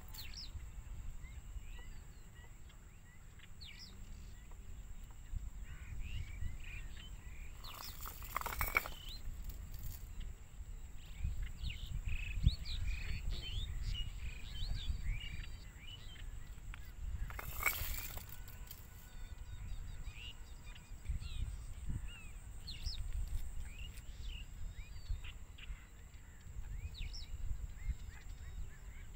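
Small birds chirping on and off over a steady low rumble and a faint, steady high thin tone, with two brief noisy rushes, about eight and eighteen seconds in.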